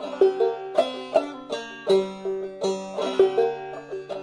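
Five-string banjo in Sawmill tuning played clawhammer style, slowly picking single melody notes with brushes across the strings in a steady rhythm.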